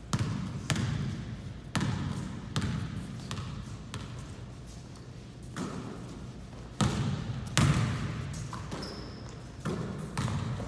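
Basketball being dribbled on a gym floor: a series of sharp bounces, each ringing out in the hall's echo. They come unevenly, roughly one every half second to a second, with a pause around the middle.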